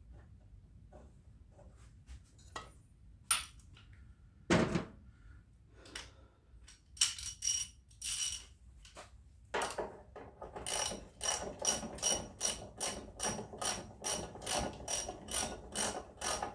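A socket ratchet clicks steadily, about three clicks a second, as a bolt is run into the tractor's split joint. Before that come a few scattered metal knocks and clicks.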